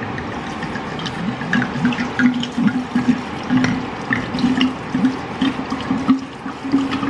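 A bottle of red wine (Cabernet Sauvignon) being poured in a steady stream into a glass drink dispenser of chopped fruit. The wine splashes into the jar and the bottle neck gurgles unevenly.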